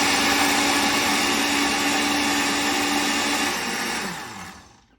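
Geepas 600-watt blender motor running at full speed, pureeing boiled spinach in its glass jar, then switched off and winding down to a stop near the end.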